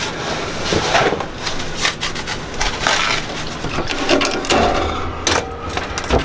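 Handling noises from a small marine stove with oven being moved and settled in its galley space: an irregular run of knocks, clicks and scrapes.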